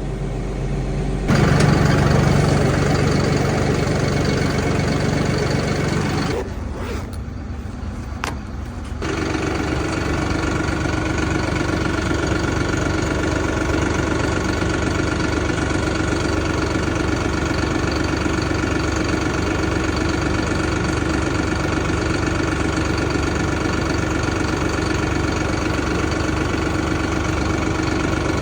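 John Deere 5075E tractor's three-cylinder diesel engine running steadily after being jump-started, its weak battery unable to start it alone. The sound shifts about a second in and again between about six and nine seconds in, then settles into a steady run.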